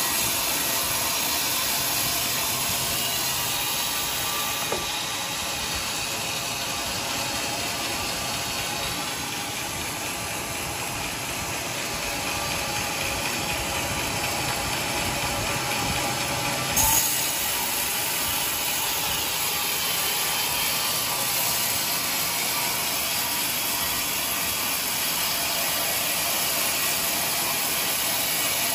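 Carriage band sawmill running, its band-saw blade cutting through a teak beam as the carriage carries it past: a steady, even noise with one sharp knock a little past the middle.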